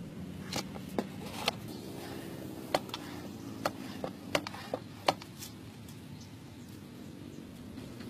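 Light handling noise: about a dozen sharp clicks and taps, scattered through the first five seconds, from hands working a cardboard box trap and its string and stick. A low steady background hum runs underneath.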